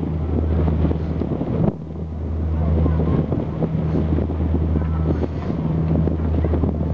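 Steady low engine drone of the sightseeing pirate ship Victory under way, with wind buffeting the microphone.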